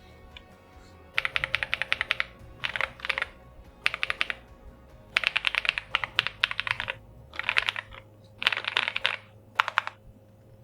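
MCHOSE G98 PRO mechanical keyboard being typed on in about seven quick flurries of keystrokes, starting about a second in; the keys sound soft but clicky.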